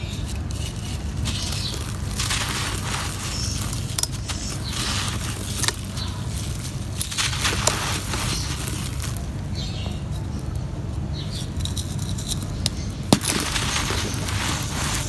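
Dry, grainy sand-dirt blocks crushed by hand: gritty crunching and a hissing trickle of loose sand pouring through the fingers, in repeated bouts, with a few sharp cracks as chunks snap. A steady low rumble runs underneath.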